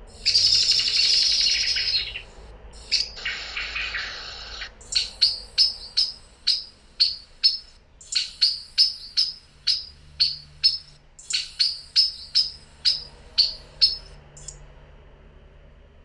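Common blackbird calling: a loud rattling chatter for about two seconds, a second shorter chatter, then a long run of sharp, repeated call notes, about two to three a second, that stops shortly before the end.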